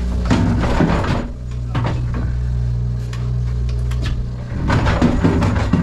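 Forklift running steadily while a pallet of netted firewood is set down on the truck's loading floor, with several bursts of knocks and clunks as the load is placed and the forks pulled out.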